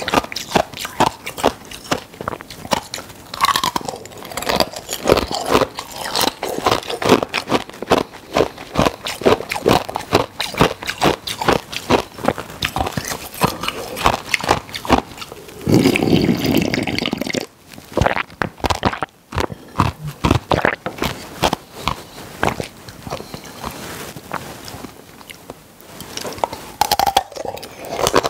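Close-miked ice cubes being bitten and chewed: a dense run of sharp, crackling crunches. About sixteen seconds in there is a louder rush of noise lasting about a second and a half.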